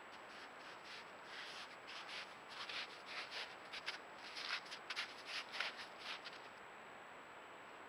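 Gray wolf up against a trail camera: a run of short, irregular scratchy rubbing and sniffing noises as its nose and fur touch the camera, from about a second in until near the end. Under it is the camera's steady hiss and a thin high electronic whine.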